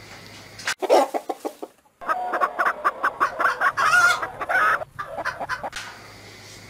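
Chickens clucking in quick repeated runs: a short burst about a second in, then a longer run of calls that cuts off abruptly near the end.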